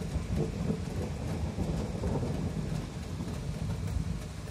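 Steady rain falling over the city, with a low, continuous rumble underneath.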